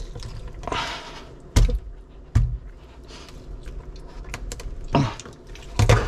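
Dull thumps and knocks in a stainless steel kitchen sink as a large lake trout is handled and its innards are worked out, four loud knocks spread across a few seconds with quieter handling sounds between.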